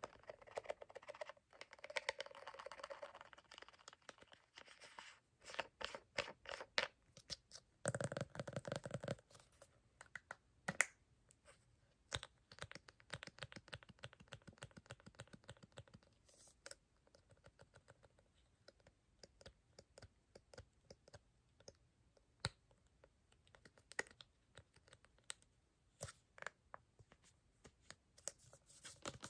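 Fingernails tapping and scratching on a plastic toner bottle and its white plastic cap: quick, irregular light clicks throughout, with a couple of short denser scratching stretches, one near the start and one about eight seconds in.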